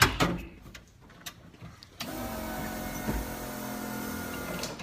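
Electric starter motor cranking the S13's 1JZ engine as a steady whine for about three seconds, starting about two seconds in and cutting off abruptly; the engine does not catch, which is put down to the fuel pump circuit shorting out again.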